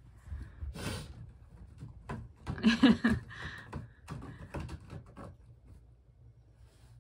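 Silver tabby cat clawing a sisal-rope scratching post, a quick run of scratching strokes about four to five seconds in. A louder short sound with some pitch in it comes near three seconds in, as the cat climbs onto the chair.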